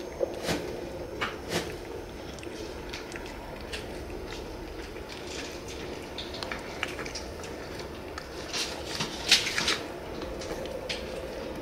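Scattered light clicks and knocks of things being handled, over a faint steady hum, with a short cluster of louder clicks a little past the middle.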